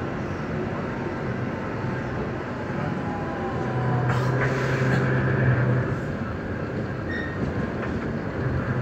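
Stuttgart Stadtbahn light-rail train running, heard from inside the passenger compartment: steady rolling and drive noise. A low motor hum swells for a couple of seconds around the middle, with a few clicks as the wheels run over points and crossings. A few short, faint wheel squeals come near the end.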